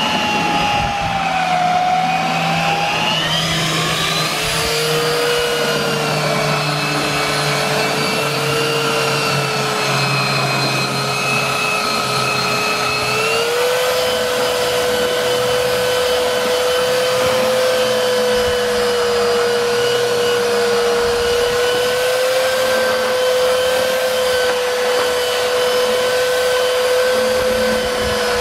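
Warrior 3-by-21-inch, 7-amp variable-speed belt sander running and sanding deck boards: a steady, loud motor whine whose pitch wavers a few seconds in and steps up slightly about halfway through.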